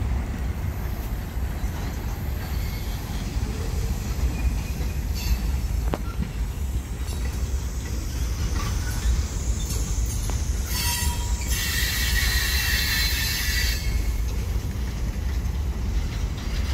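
Open-top freight cars of a CSX train being shoved backward, rolling slowly with a steady low rumble of wheels on rail. Brief squeaks sound about five seconds in, and a loud high-pitched wheel squeal runs for about three seconds from roughly eleven seconds in.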